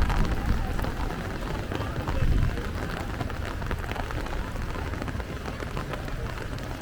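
Steady rain on a street: an even hiss with a dense patter of individual drops. Low rumbles stand out near the start and about two seconds in.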